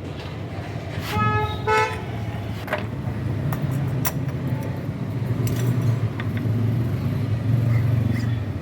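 A vehicle horn toots twice in quick succession about a second in, over a steady low engine rumble of motor traffic that grows slightly louder toward the end, with a couple of sharp metallic clicks in between.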